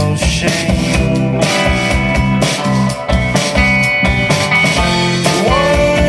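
A live rock band playing loud: two electric guitars, an electric bass and a drum kit, with regular drum hits under sustained guitar notes. One note slides up about five seconds in.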